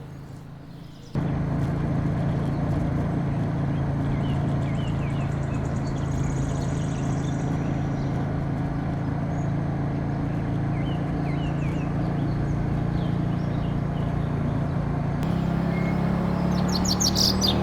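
Moto Guzzi V100 Mandello's transverse V-twin engine running at a steady speed, coming in suddenly about a second in, with its pitch rising slightly near the end. Faint bird chirps sound in the background.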